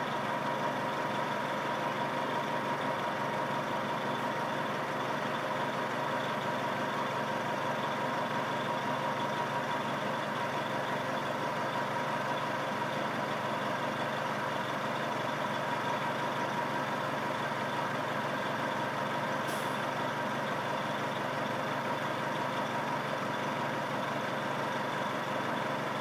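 A bus giving a steady, unbroken tone that holds without change, with a pitched note and its overtones over a constant rumble.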